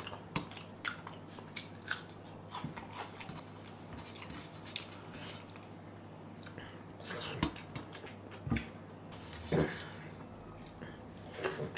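A person eating fried rice by hand: quiet chewing and mouth sounds, with scattered small clicks as fingers work the rice on a metal plate.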